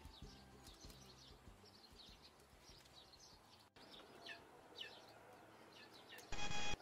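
Small birds chirping outdoors: many short, quick falling chirps throughout. Near the end comes a single loud burst of noise lasting about half a second.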